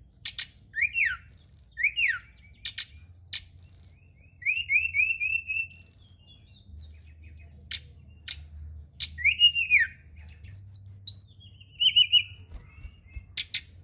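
Recorded song of a brown-chested jungle flycatcher (SRDC) played as a lure track: quick high chirps, short trills and falling whistled slurs in busy bursts, broken by several sharp clicking notes, over a faint low hum.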